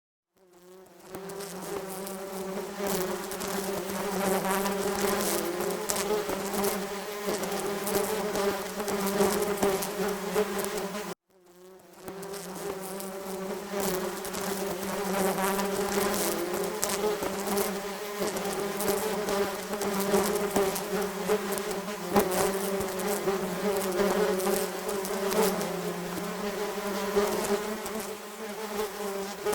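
A swarm of wasps buzzing: a dense, steady drone of many overlapping buzzes with a low hum. It cuts out abruptly about eleven seconds in and swells straight back.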